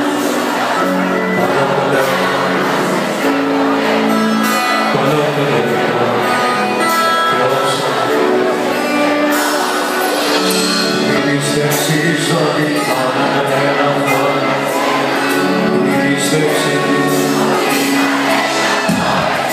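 Live band music played loud through a club's PA system: sustained notes over a steady beat, without clear lead vocals, as in the instrumental lead-in to a Greek pop song.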